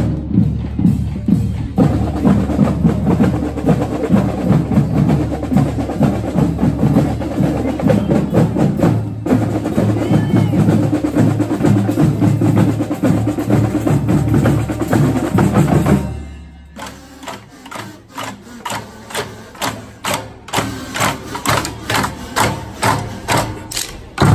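Music driven by drums and percussion with a steady beat. About two-thirds of the way in it drops suddenly in level, leaving mainly sharp percussion hits at about two a second.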